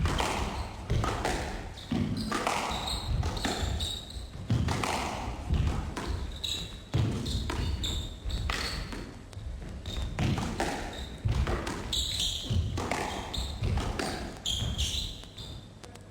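Squash rally: the ball cracking off rackets and walls in sharp hits about once a second, echoing in the court, with short high squeaks from shoes on the court floor.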